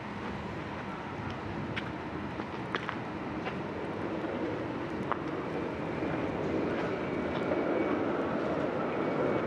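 City tram running past on its rails, a steady rumble that grows louder through the second half. A few faint clicks sound in the first half.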